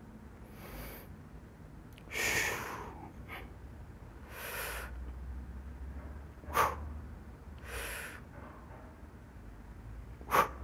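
A man doing barbell bench press reps, breathing out hard in sharp rushes of air every two to three seconds, with two sharp clacks about six and ten seconds in that are the loudest sounds.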